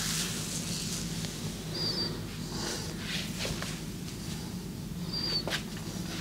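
Hands rubbing and brushing over skin during a massage, with a few soft taps and two short high squeaks, over a steady low hum.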